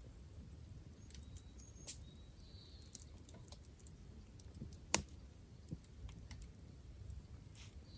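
Scattered small clicks and light tapping over a low rumble, with one sharper crack about five seconds in and a couple of brief high chirps.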